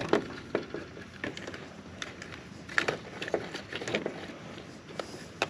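Scattered small clicks, taps and scrapes of wire handling as a spade connector on the compressor's wire is worked onto a terminal of a new dual run capacitor in the heat pump's control panel, irregular and a few a second.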